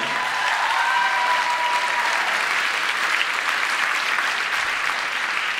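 Audience applauding steadily, easing off slightly near the end, with a single high held tone over it in the first two seconds.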